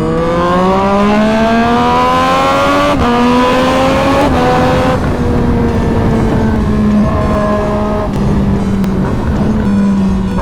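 Sport motorcycle engine accelerating hard, its pitch rising steadily, stepping down briefly as it shifts up about three seconds in, then rising again before it holds a steady high speed for the rest.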